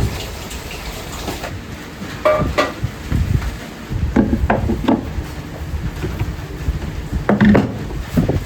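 Dishes and kitchen utensils being handled at a ramen stall: several groups of clinks and knocks, some ringing briefly, over a steady low background rumble.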